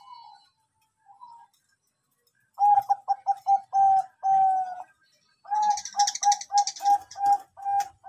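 Bangkok-type perkutut (zebra dove) cooing: two faint coos, then two loud phrases of quick staccato coos on one pitch. The first phrase ends in longer drawn-out notes.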